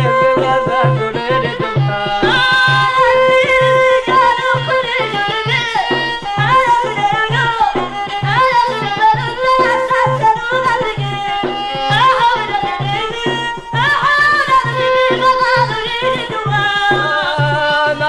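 Old Amazigh (Berber) folk song: singing and a bowed fiddle carrying a winding melody over a steady hand-drum beat of about two strokes a second.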